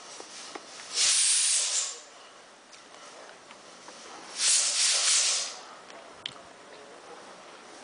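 Two bursts of hissing noise, each about a second long, about three and a half seconds apart, over a faint steady background with a few light clicks.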